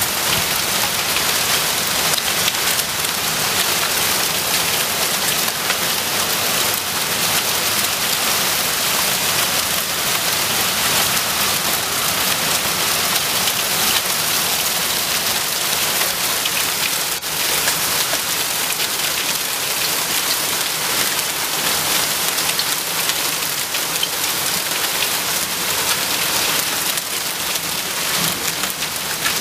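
Heavy rain mixed with hail pouring down steadily onto lake water and a wooden deck in a windy summer storm, a loud, even hiss.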